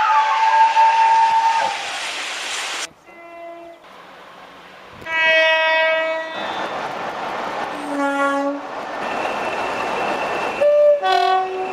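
A run of short train horn blasts from different trains, cut one after another: about five blasts at different pitches, each lasting up to about two seconds. Train running noise fills the gaps between them.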